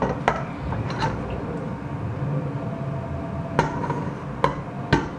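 Metal cooking utensils clinking and knocking against cookware as sauced pasta is mixed: about six sharp clinks, a few in the first second and more in the last two seconds, some ringing briefly. A steady low hum runs underneath.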